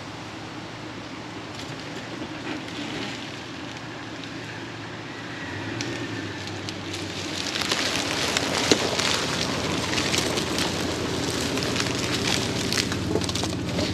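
An SUV's engine running, then from about seven seconds in its tyres rolling forward over dry leaf litter and twigs with a dense crackling that grows louder as it pulls close.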